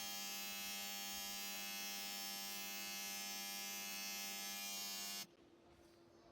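Honda Vezel GDI fuel injectors being pulsed on an injector test machine at its 6000 RPM setting: a steady electric buzz that cuts off suddenly about five seconds in.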